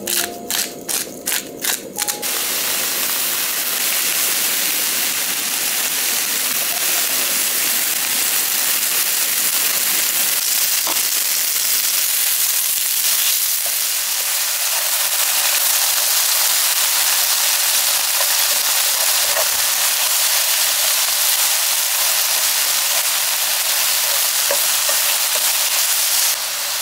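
A pepper grinder turned over the pan in a quick run of crunching strokes for about two seconds. Then strips of king oyster mushroom, green pepper, carrot and onion sizzle steadily as they stir-fry in a hot frying pan, with a few light taps of a wooden spoon.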